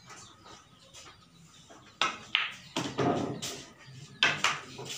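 A pool cue strikes the cue ball about two seconds in, followed by several sharp clacks as the billiard balls collide over the next couple of seconds.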